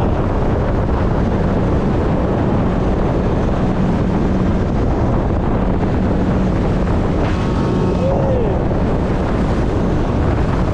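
Wind buffeting the microphone over the steady drone of a speedboat's engine and rushing water, the boat running at speed.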